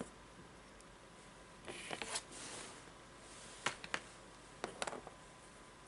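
Handling noises as a plastic paint palette is lifted off the table and set aside: a short rustle about two seconds in, then a few light clicks and knocks.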